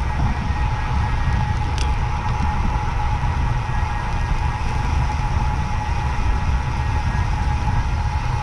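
Wind buffeting a bike-mounted camera's microphone, mixed with tyre noise on asphalt, while a road bicycle rides at speed. It is a steady, heavy rumble with a faint constant whine running through it.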